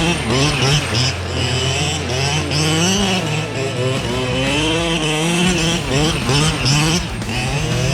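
Two-stroke gas engine of a 1/5-scale Losi DBXL 2.0 RC buggy, revving up and down over and over as the car is driven hard.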